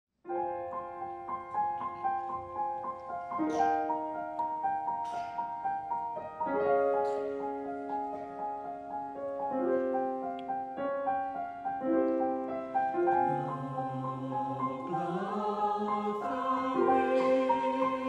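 A concert choir with piano performing a slow choral piece: held chords that change every second or two. Wavering voices become prominent from about fifteen seconds in.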